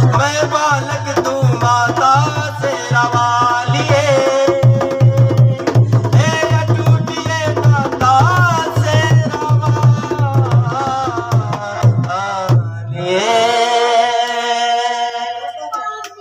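Man singing a Hindi devotional song (bhajan) over a steady drum beat. About 13 seconds in the beat stops and he holds one long final note.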